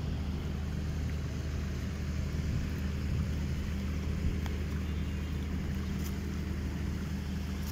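Muddy floodwater rushing steadily along a flooded road channel, a continuous low rumble with no breaks.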